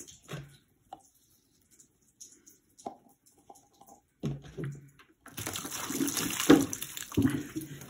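A few light taps as paper cups are stacked on a stone countertop, then from about five seconds in, water poured from a plastic gallon jug splashes over the cups and the counter.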